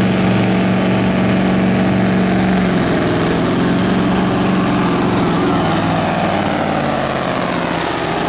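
Mack cabover pulling truck's diesel engine running hard under full load as it drags a weight sled, a steady heavy drone whose pitch sags slightly near the end.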